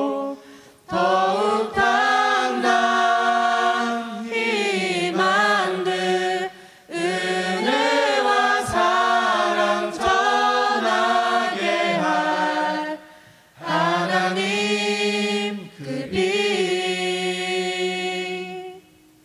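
Mixed choir singing a Korean worship song a cappella, in phrases with brief breath pauses between them. Near the end a final chord is held and fades out.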